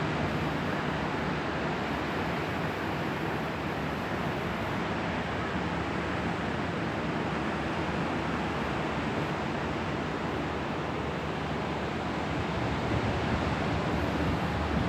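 Steady rushing of ocean surf and wind on the microphone, with a slight swell near the end.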